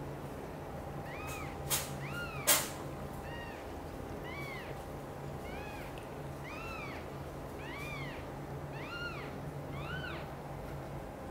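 Newborn British shorthair kitten mewing repeatedly: about a dozen short, high-pitched mews, each rising and falling, roughly one a second. Two sharp clicks about two seconds in are the loudest sounds.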